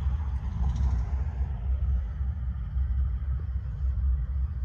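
Low, steady rumble of a CSX freight train's diesel locomotives passing through a street crossing.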